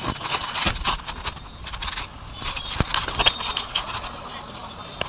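Hand tools and metal parts clinking, knocking and scraping in irregular sharp clicks as work goes on at a motorcycle's chain tensioner.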